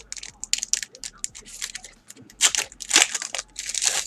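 Foil trading-card pack wrapper being torn open and crinkled by hand, a run of irregular crackles and rustles that grows louder about halfway through.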